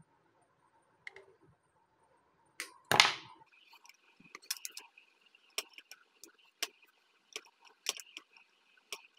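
Side-cutting pliers snipping through a battery's thin lead wires: one loud snip about three seconds in, then a string of lighter sharp clicks as the wires are cut and the pliers handled.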